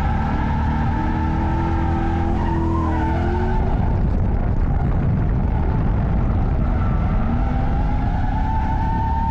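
Drift car engine revving hard at full load, its pitch climbing twice, over a steady rush of skidding-tyre and road noise.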